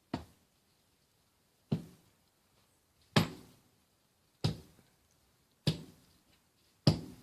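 Sledgehammer striking rock, six heavy blows about every one and a quarter seconds, each ringing briefly.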